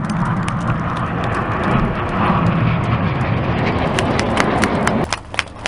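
Jet engine roar of the Red Arrows' BAE Hawk jets flying over, a steady rumble that cuts off suddenly about five seconds in.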